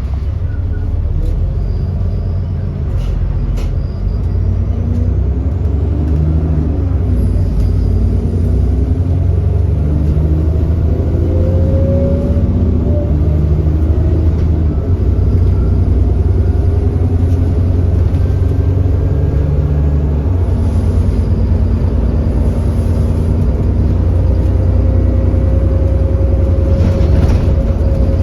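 Alexander Dennis Enviro400 double-decker bus's 6.7-litre Cummins ISB diesel engine running under way, its pitch rising and falling as the revs change through the ZF Ecolife six-speed automatic gearbox in power mode. The bus has an exhaust leak.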